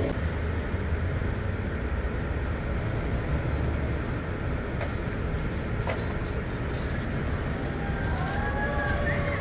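Street traffic noise: a steady low rumble of vehicles with an even hiss over it. Two faint sharp clicks come about five and six seconds in, and a few short gliding tones near the end.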